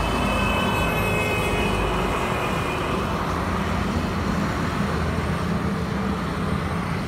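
Steady road traffic noise from passing vehicles, a continuous low rumble, with a faint high tone in the first couple of seconds.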